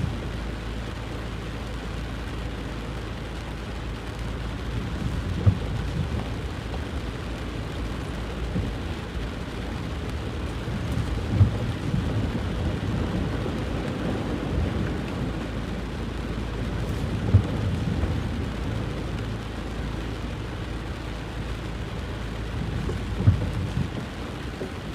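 Heavy rain and running water, a steady rushing noise, with a short low thump about every six seconds.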